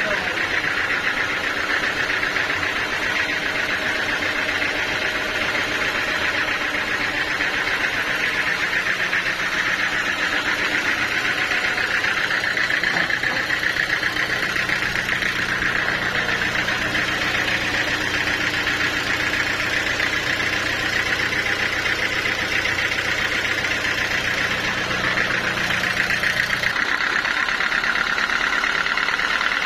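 Band sawmill running steadily as it saws a teak log, a continuous mechanical drone with a high, even edge. The low hum underneath drops away near the end while the higher sawing sound goes on.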